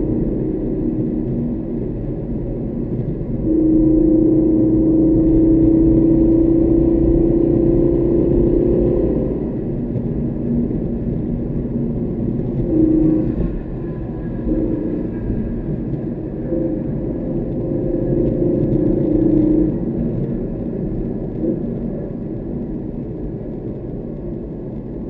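Car engine and road rumble heard from inside the cabin at speed. The engine note holds a steady pitch under load for several seconds, then comes and goes in shorter stretches as the throttle is applied and lifted.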